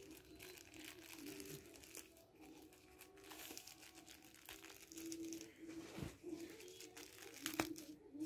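Faint crinkling of thin white wrapping being pulled open by hand from a smartwatch charging cable, with two sharper clicks in the second half.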